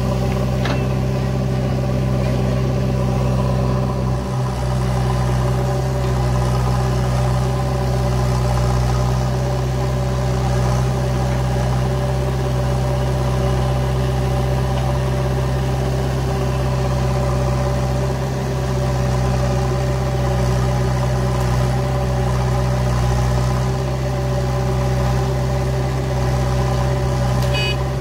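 Diesel engines of a backhoe loader and a farm tractor running steadily at a constant speed, a low even drone that does not change in pitch.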